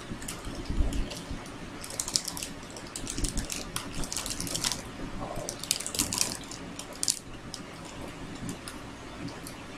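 A crinkled plastic wrapper with a metallised film being handled and shaped, crackling in several short spells.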